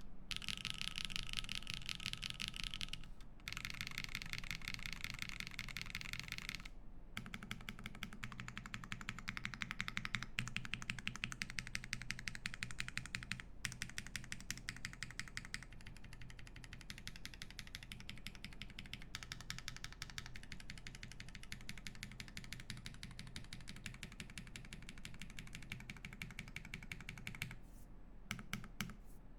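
Fast typing on an Emery65 mechanical keyboard with lubed Drop Holy Panda tactile switches in an aluminium plate, under GMK keycaps. The keystrokes come in a rapid, even stream with a few short pauses and thin out to scattered presses near the end.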